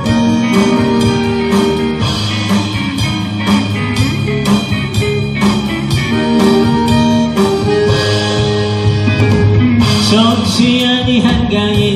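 Live band playing a song: acoustic and electric guitars with bass and drum kit keeping a steady beat, and a voice singing.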